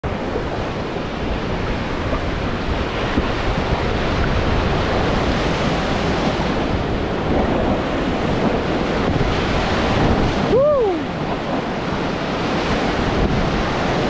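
Whitewater rapids rushing and splashing around an inflatable raft running a class III rapid. About ten and a half seconds in, a short rising-and-falling whoop from a voice.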